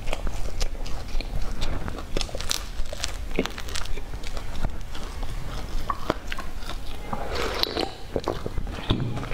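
Close-miked chewing of a mouthful of crumb-coated bread bun, with many short wet mouth clicks and soft crunches.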